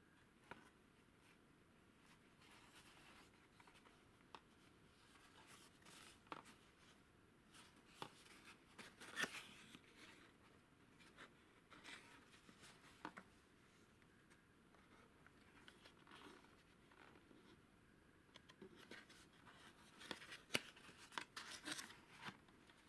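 Old cardboard valve carton handled and its end flap worked open: faint scattered rubs, scrapes and small clicks of card against fingers, busier near the end.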